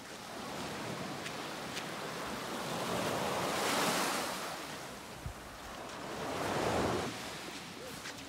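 Small sea waves washing up onto a sandy beach and running back, swelling twice: loudest about four seconds in and again near the end.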